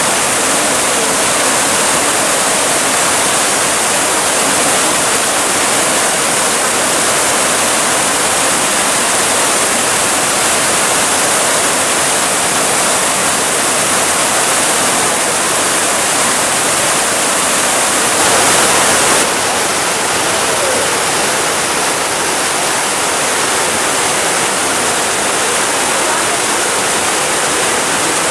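Water from stone garden fountains rushing and splashing without a break, with jets falling into basins. It swells a little and then drops slightly about two-thirds of the way through.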